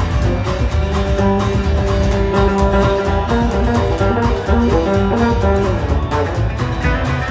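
Live country band playing an instrumental break: guitar lead over a steady, even beat.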